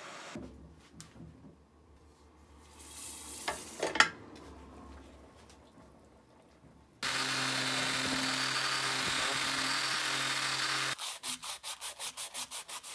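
A gas torch hisses briefly, then a hot steel cleaver blade sizzles as it is quenched for hardening, with a few sharp spikes about four seconds in. A loud, steady hiss with a low hum follows. Near the end, sandpaper is rubbed by hand in quick strokes, about six a second.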